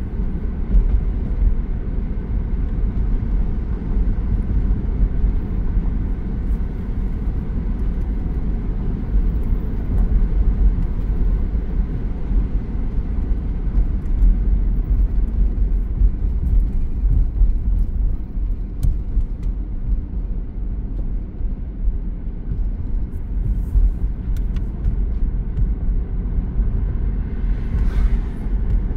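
A car driving along a road, a steady low rumble of tyres and engine that does not change through the stretch.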